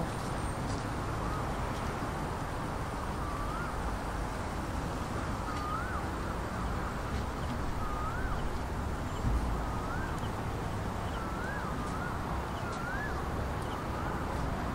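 Steady city traffic hum, with a bird repeating a short whistled note that rises then falls, about every second or two.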